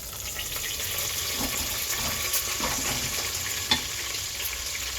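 Bacon frying and sizzling in a pot, a steady crackle, with one sharp clink about three and a half seconds in.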